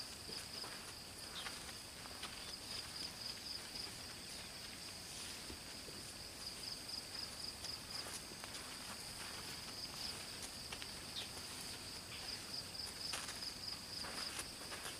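Insects keeping up a steady, fast-pulsing high trill, with faint scattered crunches and rustles.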